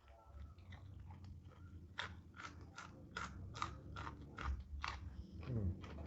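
Close-up chewing of crunchy food, with a regular run of sharp crunches, about two or three a second, starting about two seconds in.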